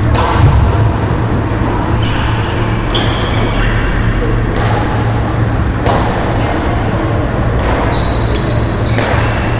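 Badminton rally: rackets strike the shuttlecock about every one to two seconds, with sports shoes squeaking on the wooden court, over a steady low hum.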